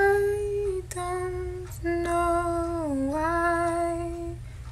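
A woman's voice humming a wordless melody in three held notes. The last and longest note dips in pitch partway through and comes back up. A steady low hum runs underneath.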